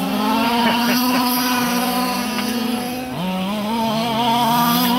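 Small engines of large-scale RC buggies running steadily at high speed, two pitches at once; their pitch dips briefly about three seconds in and climbs back.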